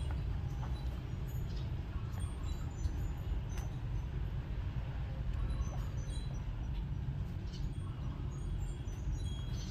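Steady low outdoor rumble, like background traffic, with a few faint short high squeaks and ticks scattered over it.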